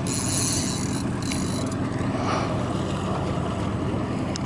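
Small boat's outboard motor running steadily at low speed, with a high buzz over it for about the first second and a half.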